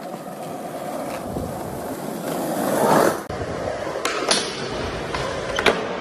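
Skateboard wheels rolling on concrete, a steady grind that grows louder to about three seconds in and then stops abruptly. This is followed by sharp clacks of the board, a pair about four seconds in and another near the end.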